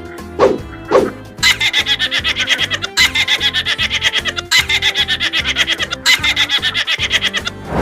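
Added comedy sound effects: a couple of short thumps, then a fast pulsing, giggle-like laugh effect at about eight pulses a second, restarting in short runs.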